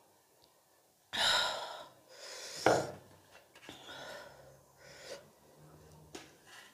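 A woman gasps twice, loud and breathy, after a drink of very spicy pani puri water: a reaction to the chilli heat. Softer breathing and small mouth sounds follow.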